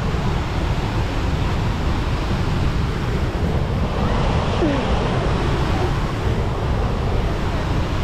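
Waterfall, its falling water making a steady, unbroken rush of noise.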